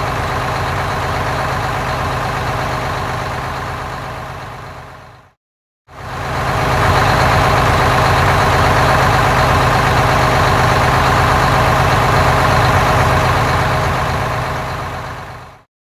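Sound effect of a heavy diesel engine running steadily. It fades in, fades out about five seconds in, then comes back louder a moment later and fades away near the end.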